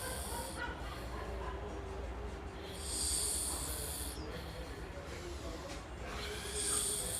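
A reptile snoring: hissing breaths that come about every three and a half seconds, one about three seconds in and another near the end.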